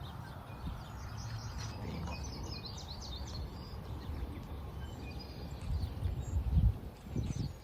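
Small birds chirping in short, quick calls, busiest two to three seconds in, over a low outdoor rumble that swells loudest about six to seven seconds in.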